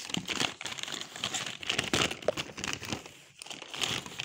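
Folded paper instruction leaflet crinkling and rustling as it is handled, a dense run of quick paper crackles.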